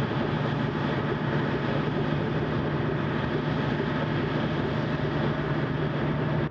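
Steady engine drone and rumble of the diesel-hauled rail train rolling a Soyuz rocket out on its transporter, an even low hum under broad noise that cuts off suddenly at the end.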